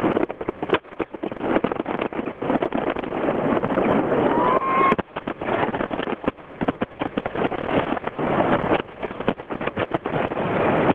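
Fireworks display: a dense, continuous run of bangs and crackles over a steady rush of noise.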